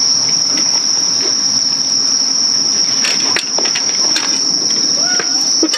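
Night insects chirping in one continuous, high-pitched trill, with a couple of light clicks about halfway through.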